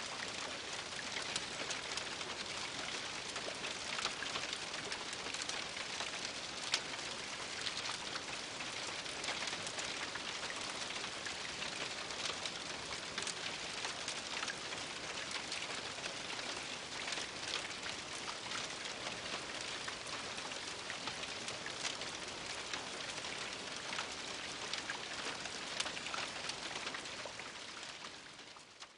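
Steady rain on a house roof heard from inside the attic: a dense patter with many separate drop ticks. It fades out near the end.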